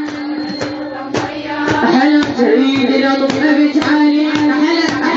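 A woman's voice chanting a Shia latmiya lament over a steady held drone, with a regular beat under it; it grows a little louder about two seconds in.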